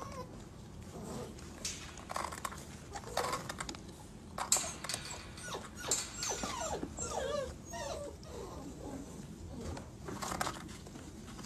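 Retriever puppies whining and whimpering in short, wavering squeaks, with scuffling and small knocks as they climb over each other into a rubber tub.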